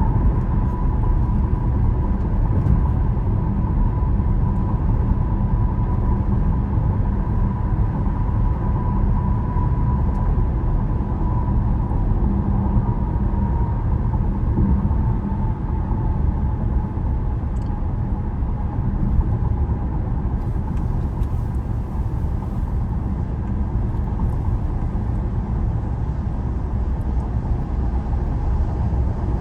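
Steady road noise of a car driving at highway speed: a low rumble of tyres and engine, with a thin steady whine above it that sinks slightly in pitch partway through.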